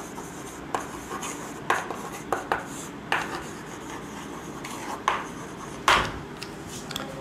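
Chalk writing on a chalkboard: irregular taps and short scraping strokes of the chalk stick against the board, the loudest a little before six seconds in.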